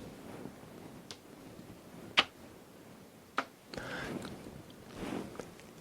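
Quiet room with a few light, sharp taps or clicks, the loudest about two seconds in, and some soft rustling noise near the end.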